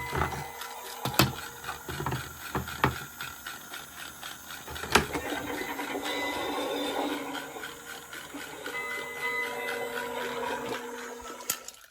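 Battery-powered toy train running over plastic track, with a steady rattling whirr and several sharp plastic clicks.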